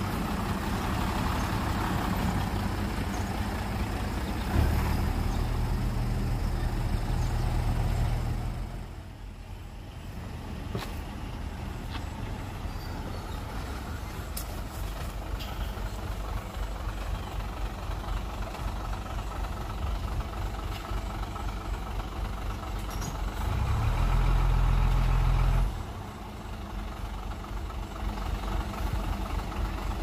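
Heavy diesel construction machinery running steadily. A deep steady engine tone swells louder twice: for about four seconds starting about five seconds in, and again for about two seconds near the end, as the machine works harder.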